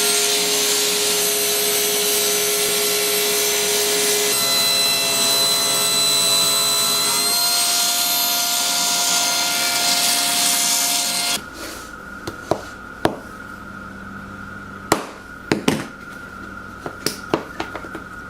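Table saw running and cutting a purpleheart blank: a loud steady whine with saw noise, its tone shifting twice, that cuts off abruptly about eleven seconds in. A quieter steady hum follows, with several sharp knocks and clicks.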